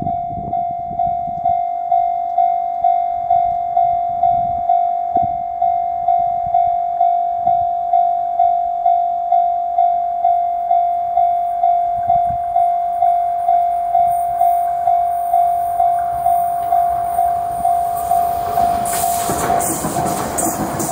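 Japanese level-crossing alarm ringing, a single electronic bell tone struck evenly about twice a second. Near the end the rushing noise of an Akita Shinkansen Komachi train swells in as it reaches the crossing.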